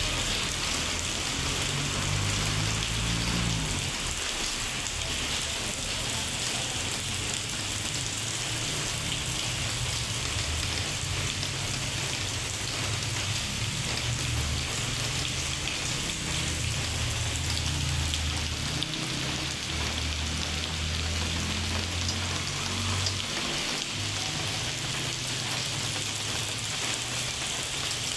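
Steady heavy rain falling on hard surfaces, an even hiss throughout. A low hum comes and goes underneath, strongest in the middle and later part.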